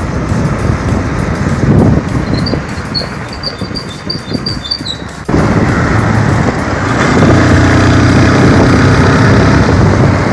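Motorcycle riding along the road: engine running under loud road noise. An abrupt cut comes about halfway, and after it a steady engine drone holds.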